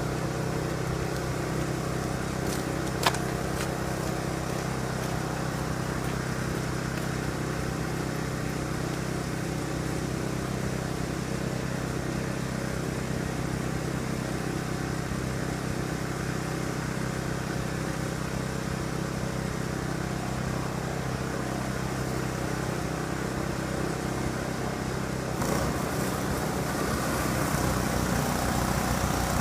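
Ariens 926 snowblower engine running steadily, with a single sharp click about three seconds in. The sound gets a little louder and noisier near the end.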